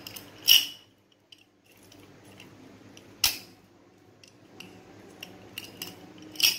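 Steel padlock being worked by hand: three sharp metallic clicks of the shackle, about three seconds apart, with light rattling of metal between.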